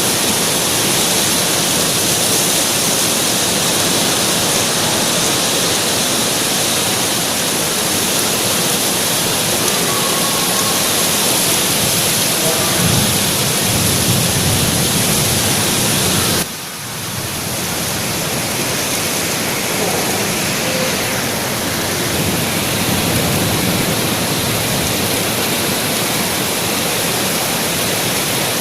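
Heavy rain driven by strong wind: a loud, steady, dense hiss. About sixteen seconds in it drops suddenly, then builds back up over a couple of seconds.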